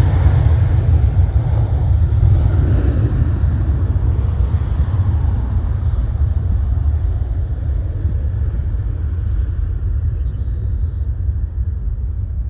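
Boeing 737-900ER's CFM56-7B jet engines at takeoff power as the airliner climbs away: a deep, steady rumble that slowly fades, its higher hiss dying out about ten seconds in.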